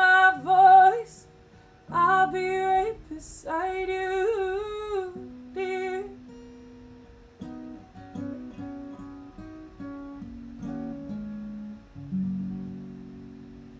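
A woman sings a few long, wordless notes over an acoustic guitar for the first six seconds or so. The guitar then plays picked notes alone and ends on a final chord about twelve seconds in that rings out and fades.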